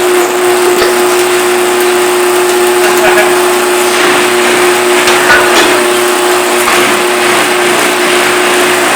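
Electric garage door opener running as it closes the door: a steady motor drone with one constant tone.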